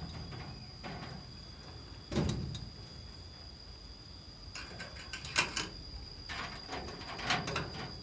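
A few light knocks and rattles at a wire-mesh bird cage, the strongest about two seconds in and two sharper clicks later on, over a steady high insect drone.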